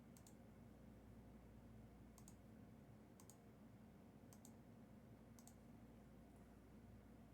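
Near silence: low room hum with five faint, sharp double clicks spaced a second or two apart.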